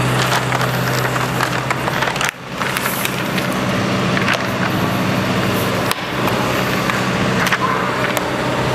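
A large paper chart rustling and crackling as it is handled and pressed flat against a chalkboard, with scattered sharp crinkles, over a steady low hum.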